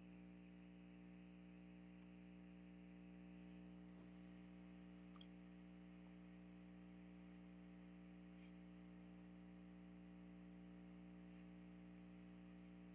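Near silence: a steady electrical hum with a few faint clicks spread through it.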